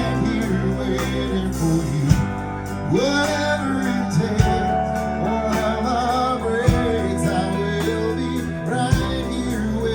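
Live band playing a slow country ballad: guitar carrying a gliding melody over a steady bass line, with a drum hit about every two seconds.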